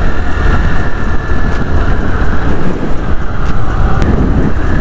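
Steady wind rush and rumble on the camera microphone of a moving scooter, mixed with the scooter's engine and road noise. A short click about four seconds in.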